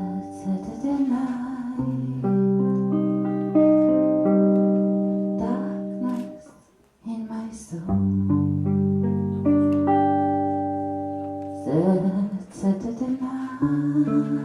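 A band playing a slow song's introduction, led by guitar chords that are struck and left to ring out and fade, with a brief break about seven seconds in.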